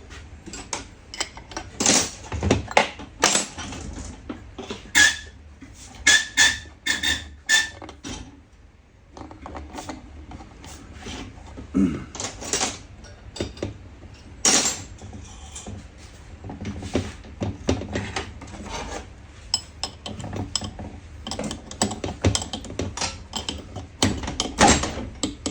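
Small metal parts and hand tools clinking and clattering irregularly on a workbench, with a few short ringing metallic taps.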